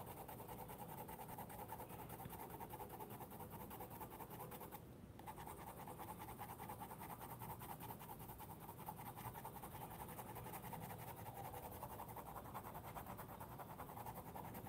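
Faint scratching of a green colored pencil shaded quickly back and forth across sketchbook paper, with a short break about five seconds in.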